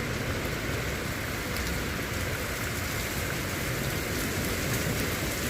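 Heavy rain with small pea-size hail falling, a steady hiss with scattered faint ticks of hailstones striking.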